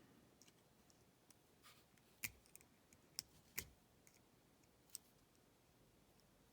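A few sharp, separate metal clicks and taps as a padlock shim is worked into a small padlock's shackle: about four distinct clicks, spaced irregularly.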